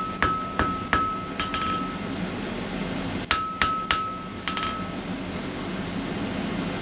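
Hand hammer striking hot mild steel on an anvil, two short runs of about four blows each, the anvil ringing with a clear tone after every blow. A steady rushing noise continues underneath and is all that is left after the second run.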